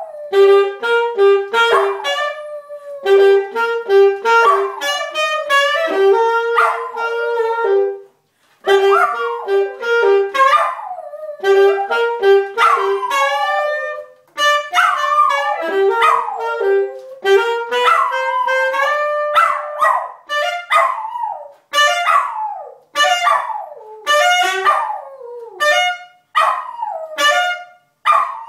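Saxophone playing short repeated notes while a small dog howls along, its wavering cries sliding up and down in pitch. In the second half the saxophone's steady notes drop back and the dog's short, gliding howls take over.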